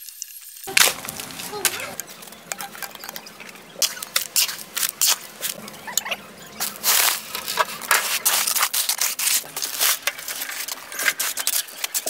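Irregular scraping and crunching of a hoe and shovel working a gravel-and-cement concrete mix, many short rough strokes in quick, uneven succession.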